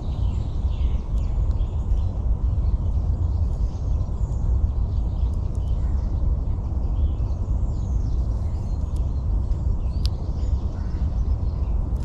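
A steady low rumble with faint, high chirps and calls of small birds scattered through it, and one sharper chirp about ten seconds in.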